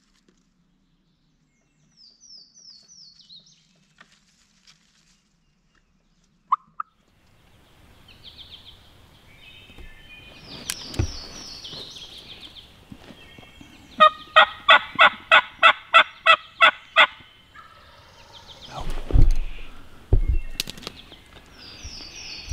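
Wild turkey calling: short runs of high notes, then a loud run of about a dozen evenly spaced yelps over some three seconds in the middle. A couple of low thumps follow near the end.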